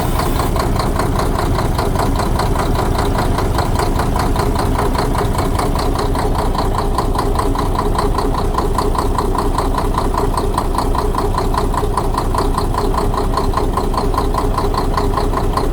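Six-cylinder diesel truck engine idling with a steady, rhythmic knock. One injector's high-pressure line from the injection pump is slackened, and the knock carries on unchanged, so that cylinder is not the source of the knock.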